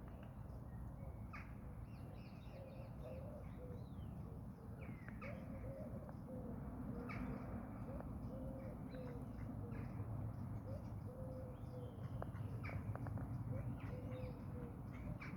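Several small birds chirping and calling in short, quick notes, over a steady low background rumble.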